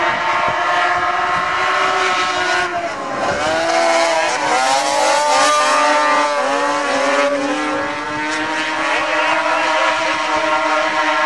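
Several vintage racing snowmobiles' two-stroke engines running at high revs together, their pitch dipping and rising again and again as they are throttled through the turns.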